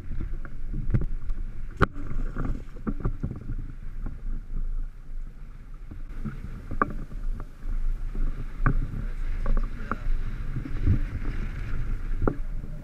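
Choppy water slapping against a small boat's hull, with a steady low wind rumble on the microphone and many irregular knocks and splashes, the sharpest about two seconds in.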